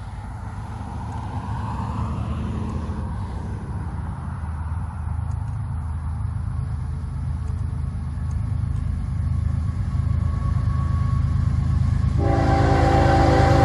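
CSX diesel freight locomotive approaching, its low engine rumble growing steadily louder, then its horn sounds a chord of several notes at once about twelve seconds in.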